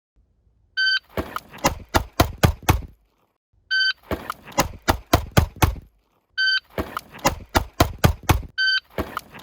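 Shot timer beeps, then a rapid string of about five handgun shots follows each beep. The beep-then-string pattern repeats about four times.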